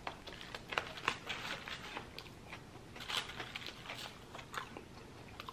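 A mouthful of lamb gyro in pita being chewed, with scattered short clicks and smacks from the mouth.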